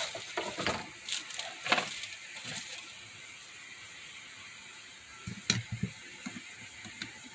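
Handling noises from a cordless rotary hammer: scattered clicks and scrapes as its depth-guide button and rod are worked. There is a cluster in the first few seconds, a quiet stretch, then a few more clicks a little past the middle.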